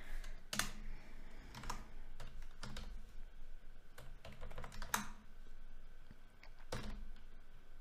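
Typing on a computer keyboard: irregular keystrokes, roughly one every half second to a second, with a longer gap before a last keystroke near the end.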